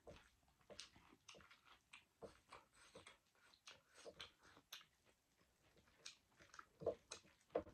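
Quiet eating sounds: soft, irregular wet clicks of chewing and lip smacking, with two louder clicks near the end.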